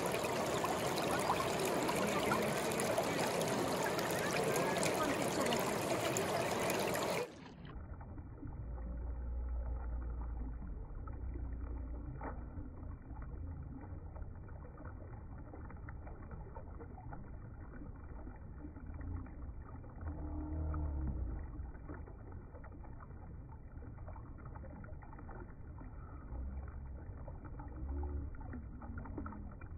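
Shallow river rushing over rocks in a steady wash of water. About seven seconds in it changes abruptly to a muffled, much deeper rumble that swells now and then: the same water sound slowed down.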